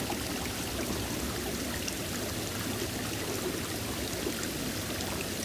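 A shallow stream flowing over rocks: a steady wash of running, trickling water.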